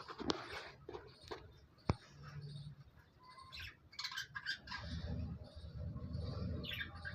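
Budgerigars chirping and chattering in short high calls, with a couple of sharp clicks early on and a low rumble in the second half.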